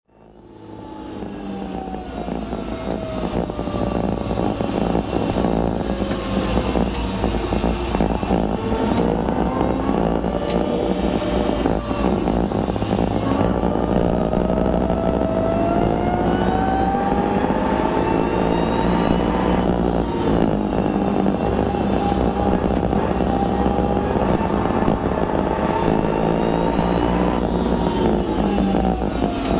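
BMW E92 M3's S65 4.0-litre V8 heard from inside the cabin at full track pace, its pitch climbing under acceleration and dropping sharply at gear changes and braking, over steady road noise. The sound fades in over the first two seconds.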